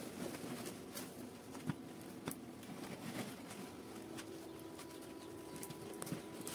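Faint rustling of a burlap sack and chopped greens being tipped into a metal cooking pot and pressed down by hand, with a few soft knocks. A faint low hum comes in about four seconds in.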